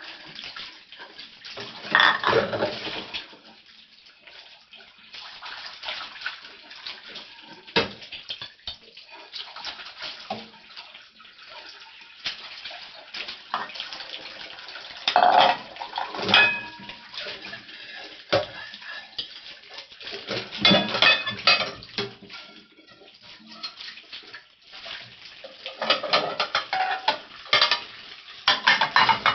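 Dishes being washed by hand in a stainless-steel sink: plates and bowls clinking and clattering against each other and the sink under a running tap, with louder bursts of clatter every few seconds.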